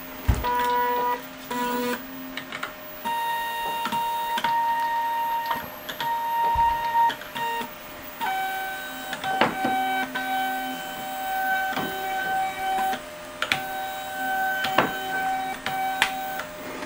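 Stepper motors driving a 3D-printed robot-arm joint through a two-stage timing-belt reduction, whining at a steady pitch that jumps to a new pitch each time the speed changes, with short pauses between moves. A few sharp clicks come through as the joint moves.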